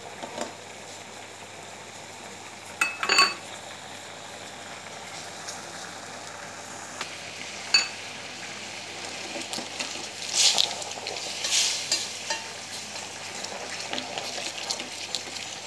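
Thickening tamarind and sugar chutney bubbling and sizzling steadily in a steel pan. A steel spoon clinks sharply against the pan a couple of times and scrapes around it in strokes about two-thirds of the way through.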